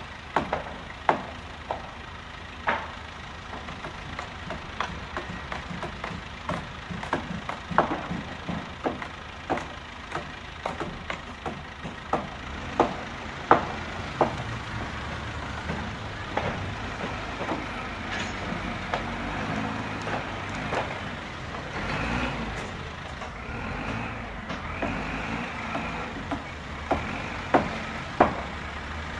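Plastic Lego Technic excavator parts clicking and knocking repeatedly as the toy is worked, with a wavering whir joining in during the latter part.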